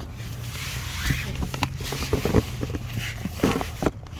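Rustling handling noise with scattered clicks and knocks, over a steady low hum.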